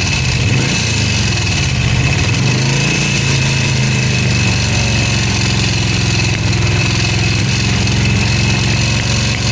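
Moto Morini motorcycle engine idling steadily with a steady high-pitched whine over it, on its first start after standing unused for 20 years. The abnormal noise is described as severe.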